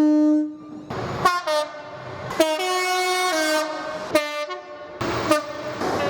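Multi-tone train horn sounding a run of held notes that change pitch several times, like a tune, with a few sharp clicks between notes.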